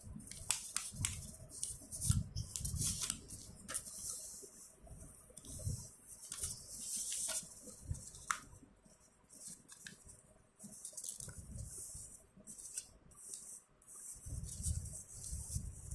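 Sheets of A4 paper rustling, sliding and scraping in irregular short strokes as they are handled and folded in half by hand, with soft thuds against a cloth-covered surface.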